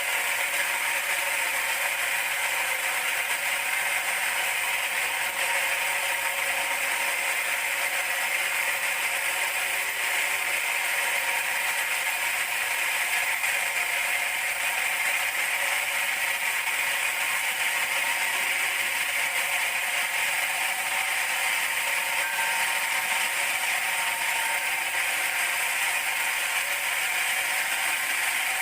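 Large band sawmill running steadily: an even mechanical whir and hiss with several held tones, unchanged throughout.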